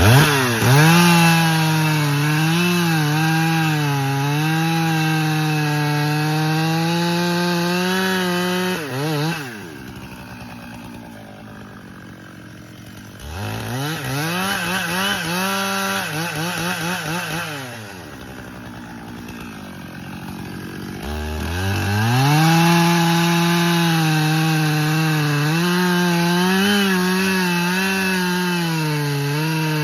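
Stihl chainsaw running at full throttle and cutting wood, its pitch wavering under load; twice it drops back to idle, about nine seconds in and again near the middle with a short rev between, then it revs up to full speed once more.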